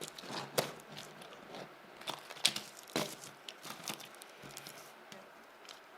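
Toy monster trucks being handled and stacked on one another: a string of irregular light clicks and knocks, with a little crunching.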